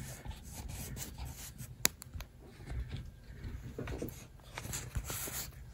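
Faint rubbing and handling noise of things being moved about by hand, with a single sharp click about two seconds in and a few soft knocks near the end.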